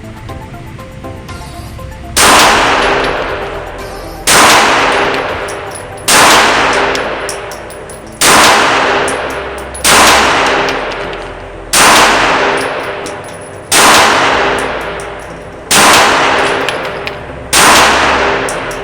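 Nine pistol shots from a Glock G25 firing .380 ACP, one about every two seconds in slow, steady fire, each shot followed by a long echoing decay.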